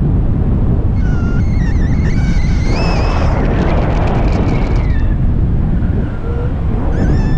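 Wind buffeting the camera's microphone in paragliding flight, a steady rumbling rush, with a high wavering whistle that comes in about a second in, fades around five seconds and returns near the end.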